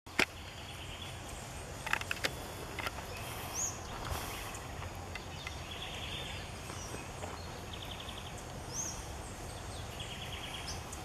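Woodland ambience: birds giving two short high chirps and several quick ticking runs, over a low steady rumble, with a few sharp clicks or snaps in the first four seconds.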